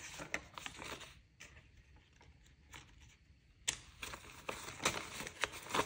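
Paper banknotes being handled and counted into a binder cash envelope: soft rustling and flicking of bills, quieter for a couple of seconds in the middle, then sharper flicks in the last couple of seconds.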